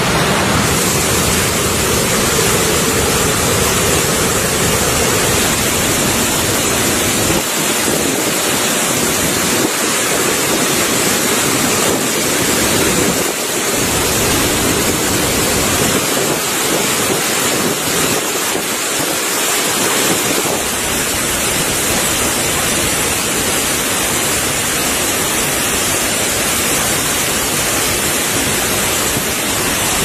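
Steady, loud rush of a waterfall and a fast-flowing mountain stream.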